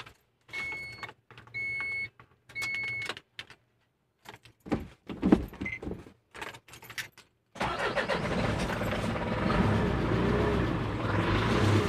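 Three short electronic beeps, then scattered clicks and rattles, and about halfway through the Isuzu 4HL1 four-cylinder diesel engine starts and runs steadily, heard from inside the truck's cab.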